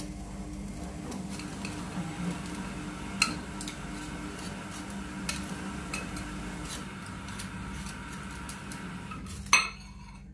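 Metal kitchen tongs clicking and scraping against a ceramic plate while fried chicken pieces are pressed into a cheese coating. There are scattered sharp clinks, the loudest near the end, over a steady low hum.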